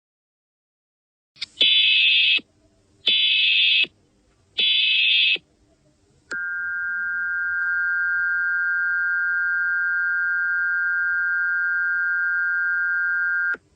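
Emergency Alert System header tones: three short bursts of buzzing data tones, about a second each, followed by a steady alert tone held for about seven seconds before it cuts off.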